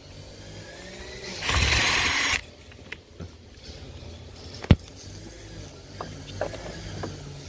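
Cordless drill/driver running for about a second, backing out a door mirror mounting screw, followed a few seconds later by a single sharp click.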